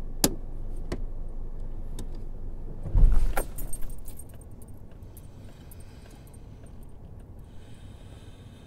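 Car keys jangling with a few sharp clicks in a car cabin, then a loud thump with rattling about three seconds in, after which a quieter steady hum carries on.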